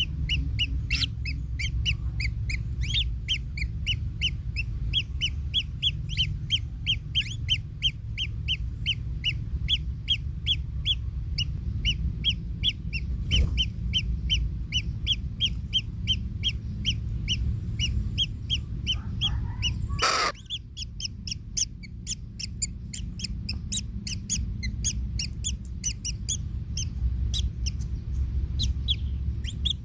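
Kingfisher chicks calling in the nest: a long run of short, high, evenly repeated calls, about three a second, which become sparser and higher after a sharp knock about twenty seconds in. A steady low rumble runs underneath.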